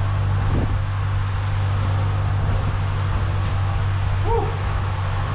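Steady low mechanical hum with an even rushing noise, like a running fan or machine, and a brief faint squeak about four seconds in.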